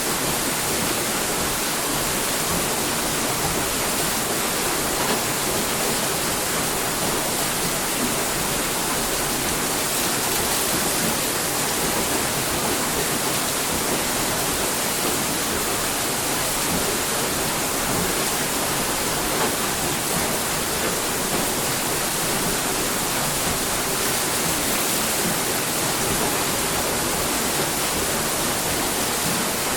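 Water rushing steadily at a water mill, an even, continuous rush with no pauses or changes.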